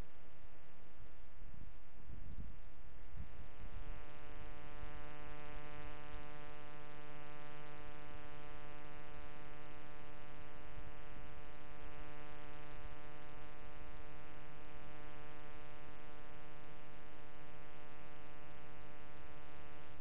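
Steady, unbroken, high-pitched buzzing of an insect chorus.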